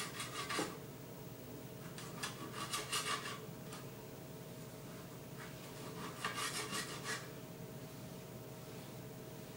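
Knife slicing a kiwi on a cutting board: three runs of quick cuts, at the start, about two to three seconds in and about six to seven seconds in.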